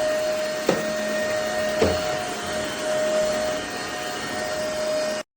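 Stanew cordless stick vacuum cleaner running steadily with a high motor whine and airflow hiss, broken by two short knocks about a second apart. It cuts off suddenly at the end.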